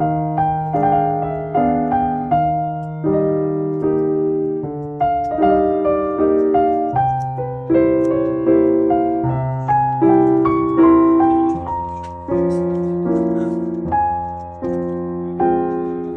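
Background piano music: a gentle melody of struck, decaying notes over a held bass line.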